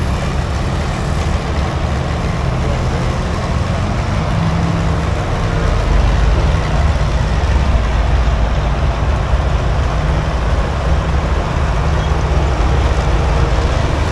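Large engine running steadily with a heavy low rumble, growing somewhat louder about six seconds in.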